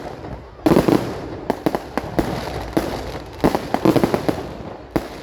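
Fireworks going off in quick succession: sharp bangs and crackling clusters of reports, loudest about a second in and again a little past the middle.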